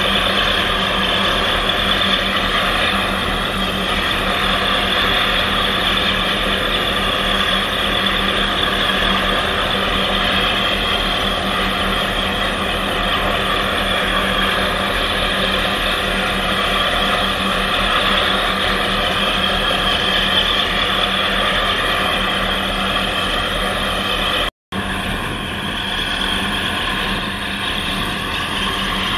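A boat's diesel engine running steadily at close range, a constant drone with a low hum under it. The sound cuts out for a split second about three-quarters of the way through.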